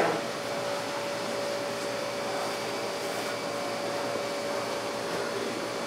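Steady machine whir with a constant low hum tone running through it, like a fan or air-handling unit.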